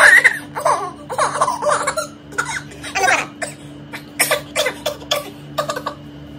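Toddler squealing and laughing, followed by a run of short, breathy laughs.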